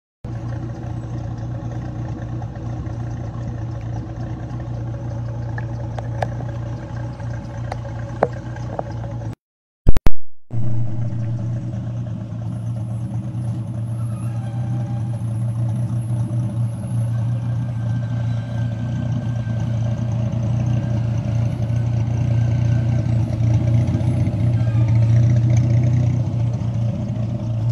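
Dodge Viper RT/10's V10 engine idling steadily, growing somewhat louder in the second half. About nine seconds in the sound cuts out for about a second and comes back with a loud click.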